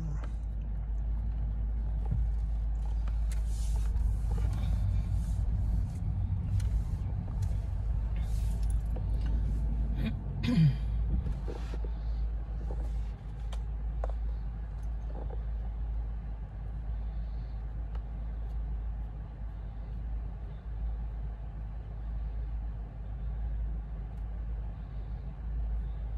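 Inside a car's cabin, a steady low rumble of the car rolling slowly. Scattered clicks and knocks come through the first dozen seconds, with one short sliding sound about ten seconds in.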